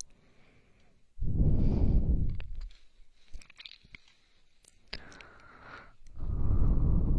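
Slow ASMR breathing close to the ear: two long, loud breaths about a second in and again about six seconds in, with a softer breath between them. A few faint clicks fall in the quiet gap.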